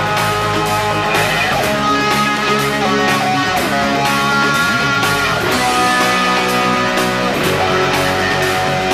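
Background music led by guitar, with a steady beat and sliding guitar notes.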